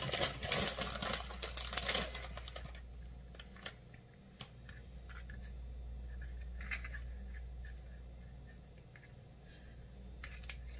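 Plastic bag of shredded cheese crinkling for the first few seconds, then faint scattered ticks and rustles of hands folding and pressing biscuit dough on a plastic cutting board, over a low steady hum.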